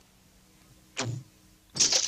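Near silence, broken about a second in by one short knock.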